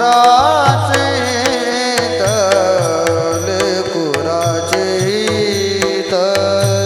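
Devotional kirtan music: a singer's drawn-out, wavering melodic line without clear words, over steady held accompanying tones, with regular drum and small-cymbal strokes keeping the beat.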